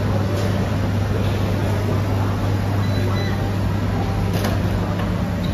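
Indoor food-market ambience: a steady low hum of fans and ventilation under a constant wash of background noise, with a faint clink about four seconds in.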